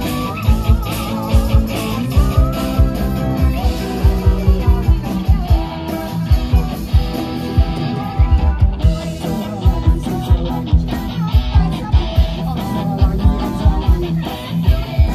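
Live band music with guitar over a steady drum beat.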